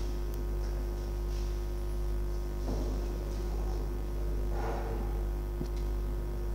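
Steady electrical mains hum: a constant low drone with a steady higher tone over it. Two faint rustles come about three and four and a half seconds in.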